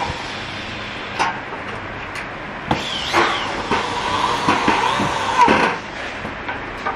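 Electric drill spinning up and boring into a gas stove control knob for about three seconds, then stopping abruptly; a few sharp clicks of the knob being handled come before it.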